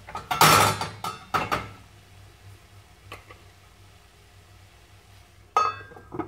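Stainless steel pan lid clattering: a couple of sharp metallic knocks in the first second and a half as it is handled, then two more clanks near the end as it is set down onto a frying pan, with a brief ring.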